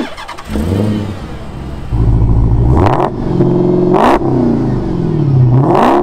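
Dodge Challenger SRT Hellcat's supercharged V8 running and being revved hard several times, its pitch sweeping up and down between sharp blips.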